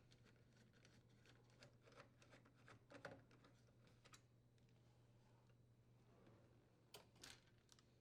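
Near silence with scattered faint clicks and ticks of a screwdriver working screws out of a dishwasher door hinge, a little clearer about three seconds in and again near the end.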